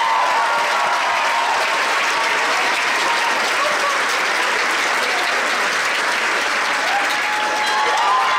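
Theatre audience and cast applauding steadily, with a few voices calling out about a second in and again near the end.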